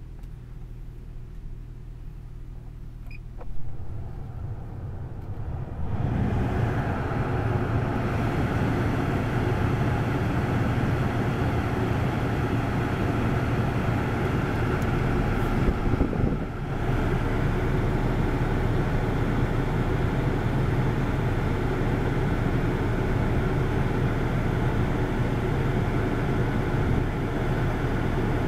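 Car air-conditioning blower fan switching on about six seconds in and blowing a steady rush of air out of the dash vents, over the low hum of the idling twin-turbo 2.5-litre engine (1JZ-GTE straight-six). A single click or knock comes a couple of seconds before the fan starts.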